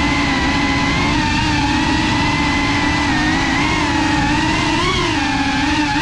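Motors and propellers of a Cinelog 35 cinewhoop FPV drone buzzing steadily in flight, the pitch wavering a little up and down as the throttle shifts.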